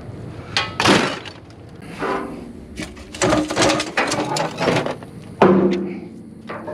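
Scrap metal pieces clanking and knocking as they are pulled out of a pile and handled, with a loud clang about a second in, a quick run of clatters in the middle, and a hard hit near the end that rings briefly.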